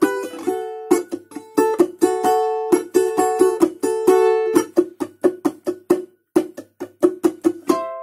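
A balalaika strummed in a fast rhythmic pattern of quick strokes over the chorus chords, with the chords ringing between strokes. The strumming breaks off briefly a little past six seconds in, then resumes.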